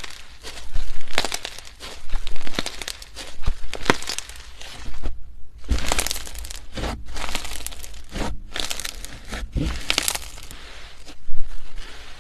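Slime being squeezed and played with by hand, giving irregular crackling, crinkly clicks and short squelching bursts.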